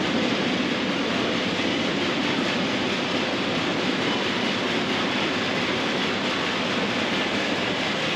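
Shopping trolley rolling steadily over a concrete warehouse floor, its wheels rumbling and rattling without a break.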